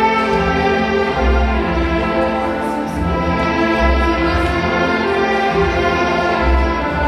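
Background music with sustained held chords and a deep low pulse about every two and a half seconds.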